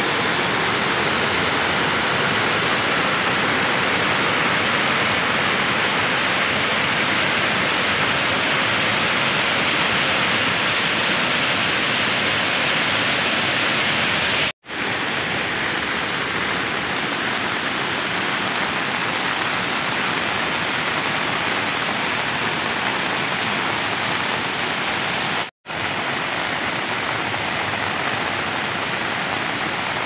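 Rushing water of a broad waterfall cascading over rock, a steady loud roar of water, cut off for an instant twice.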